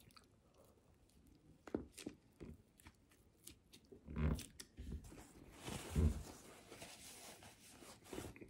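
A person chewing a bite of ham and cheese sandwich close to the microphone: soft mouth sounds with scattered small clicks and a few louder short sounds.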